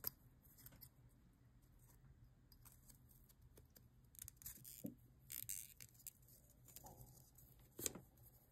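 Faint scraping of a craft knife blade trimming the edge of a small leather cutout, in a few short strokes about halfway through. Light clicks and taps from handling the piece and tool come and go, the sharpest right at the start and near the end.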